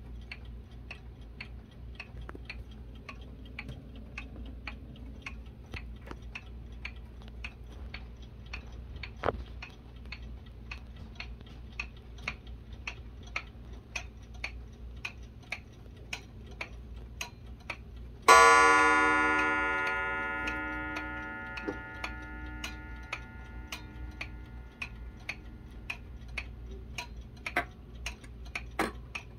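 Alaron 31-day pendulum wall clock ticking steadily. About two-thirds of the way in it strikes once on its gong, and the tone rings out and fades over a few seconds.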